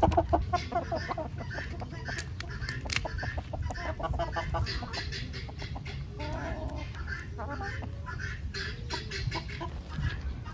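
Fowl clucking, a quick run of short notes at the start, then scattered calls and clicks over a steady low rumble.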